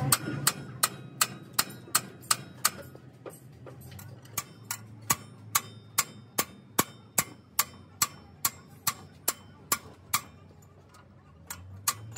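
Steel wrench clicking on a bolt of a truck's front steering knuckle as the bolt is worked loose or tight: sharp metallic clicks at about two to three a second, with a brief pause a few seconds in.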